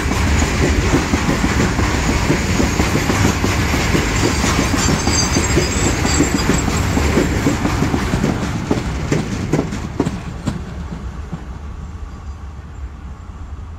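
Wheels of a long Indian Railways freight train of open BOXNHL wagons rolling past at speed, with a steady clatter over the rail joints. The noise dies away from about ten seconds in as the brake van at the tail passes and recedes.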